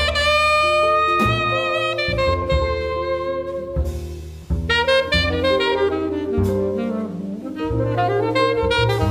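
Alto saxophone soloing in a jazz combo with double bass underneath: a long held note in the first two seconds, then quicker runs of notes.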